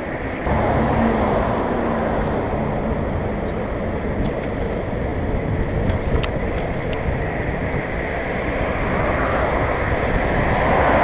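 Steady rushing wind on the microphone of an electric bike riding at speed, mixed with road traffic alongside. A faint steady hum sounds for a couple of seconds about half a second in.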